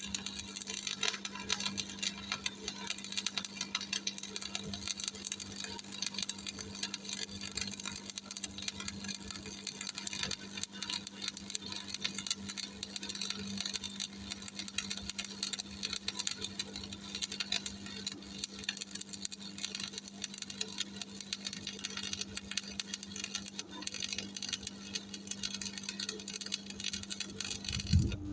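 Stick-welding arc from a 3.2 mm E6013 electrode on a Miller Thunderbolt 225, crackling steadily while a bead is run. It stops abruptly near the end as the arc is broken, leaving the welder's steady hum.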